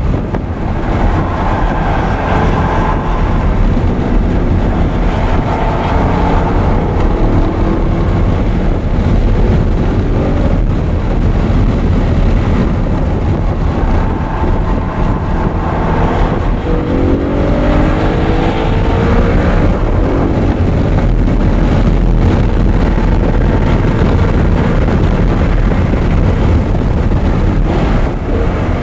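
Audi R8 engine on track under hard driving, its pitch rising and falling as it revs through the gears, with a clear climb in revs about two-thirds of the way through. Heavy wind buffeting on the microphone adds a constant low rumble.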